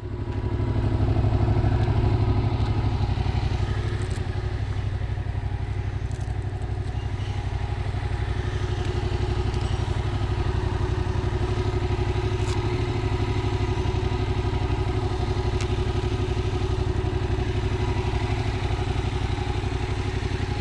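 Motorcycle engine running steadily with a low, even beat, coming in abruptly at the start.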